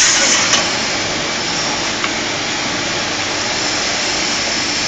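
Steady, even machine noise from a hydraulic brake-lining press workshop, with a few light metal clinks in the first half second and one about two seconds in as steel lining backs are handled at the mould.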